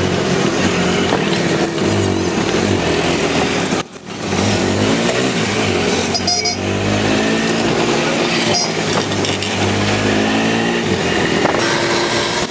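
Auto-rickshaw (tuk-tuk) engine running while riding in city traffic, its pitch rising and falling with the throttle, with a brief dip in level about four seconds in.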